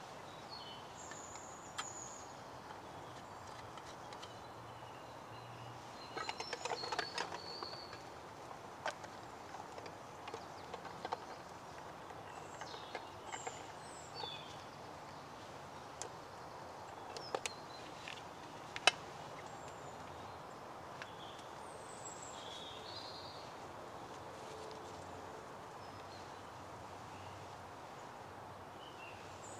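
Small kindling fire of thin twigs crackling, with scattered sharp pops and snaps, a cluster of them about six to eight seconds in and the loudest near nineteen seconds. Birds chirp briefly now and then.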